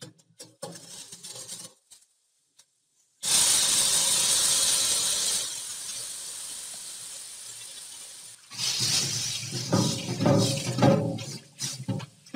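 A hot carbon steel wok hissing as tap water hits it, the sizzle starting suddenly about three seconds in and fading as the metal cools. From about eight seconds on, a sponge scrubs the burnt wok under running water in uneven strokes.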